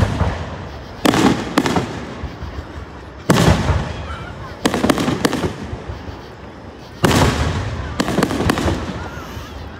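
Aerial firework shells bursting overhead: about nine sharp bangs at irregular intervals, each fading off over a second or more.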